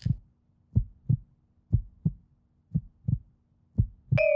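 Heartbeat sound effect used as a suspense cue: paired low thumps, lub-dub, about once a second. Near the end a held, slightly wavering electronic tone comes in.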